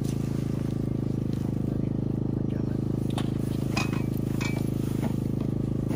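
A steady low engine-like drone, as of a vehicle running, with a few light clicks and ticks in the middle.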